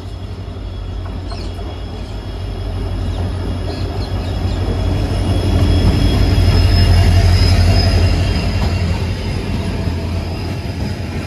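Diesel-hauled passenger train passing on the adjacent track. The locomotive's deep rumble builds to its loudest about six to eight seconds in, then eases as the coaches roll by with steady wheel-on-rail noise and a thin high whine.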